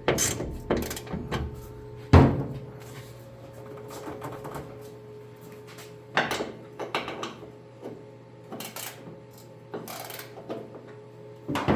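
Scattered knocks and clunks of metal and hand tools while a car hood's hinge bolts are loosened and the hood is shifted, the loudest knock about two seconds in, over a steady low hum.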